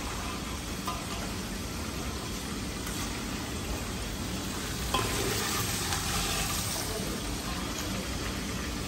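Liver frying and sizzling in oil in a large aluminium pot on a gas stove, while a ladle stirs and scoops the fried pieces out; a sharp knock of the ladle about five seconds in.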